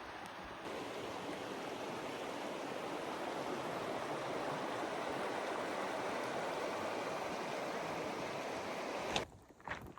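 Steady rushing of water flowing in a spring-fed stream, an even hiss that cuts off suddenly near the end, followed by a few sharp ticks.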